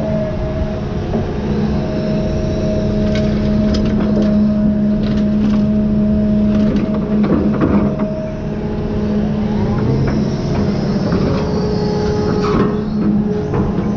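John Deere 210G hydraulic excavator's diesel engine running steadily as the machine works, with a run of clattering as a bucket of dirt is dropped into a dump truck bed around the middle, and another clatter near the end as the bucket digs into the dirt pile.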